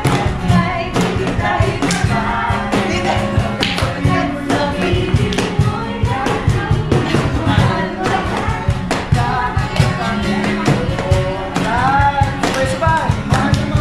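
Group singing a Tagalog praise and worship song, with a steady beat and clapping.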